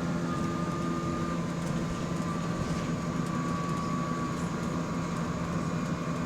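Inside a moving bus, a thin high-pitched whine of unknown origin stepping down in pitch in small steps, over the bus's steady running drone and low hum.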